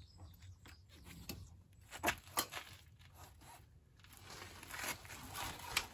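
Motorcycle center stand being stepped on and the bike heaved up onto it: gritty scuffing underfoot and a few sharp knocks, two close together about two seconds in and one near the end.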